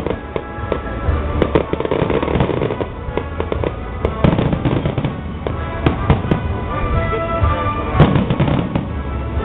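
Aerial fireworks shells bursting one after another in a display, repeated sharp bangs and crackling, with the biggest bang about eight seconds in.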